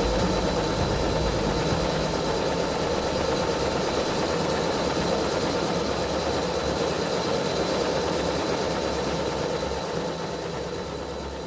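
Steady mechanical rumble and hiss with faint constant tones running through it, easing off slightly near the end.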